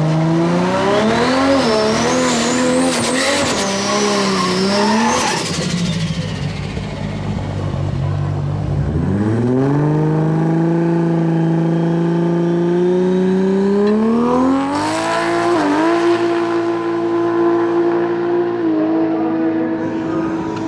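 Drag race cars launching and running hard down the strip. A high-revving engine climbs in pitch through quick gear changes with a rising whine over it, then cuts off about five seconds in. A second engine then pulls up steadily, dips once at a shift and holds a high steady note.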